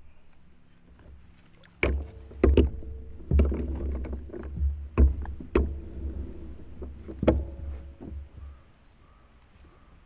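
Knocks and bumps on the plastic hull of an Old Town Predator PDL pedal kayak, with low rumbling, in a run of thumps from about two seconds in until near the end.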